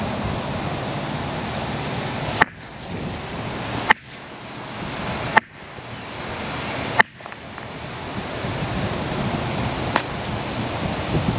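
Steady rushing wind noise on the microphone, broken by five sharp clicks; after each the noise drops suddenly and slowly swells back.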